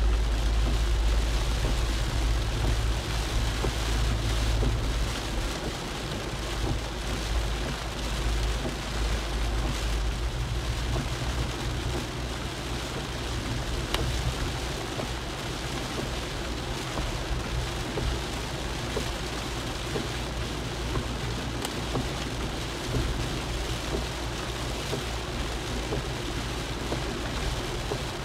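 Rain falling on a car's roof and windscreen, heard from inside the moving car over steady road noise on a wet road. Underneath is a deep rumble that is loudest for the first five seconds or so, then settles lower.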